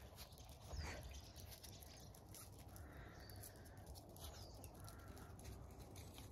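Very quiet: a few faint, short bird chirps and the light patter and scuffle of puppies' paws on concrete.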